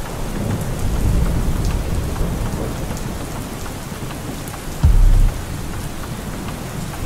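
Steady rain pattering with a low rumble of thunder. About five seconds in comes one short, loud, deep boom.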